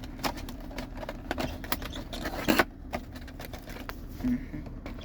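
Cardboard model-aircraft box and its packaging being opened by hand: a run of short clicks, scrapes and crinkles, loudest a little past halfway, over a steady low hum.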